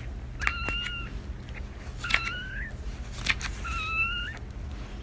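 Three short, high cat mews, about a second and a half apart, each starting with a click.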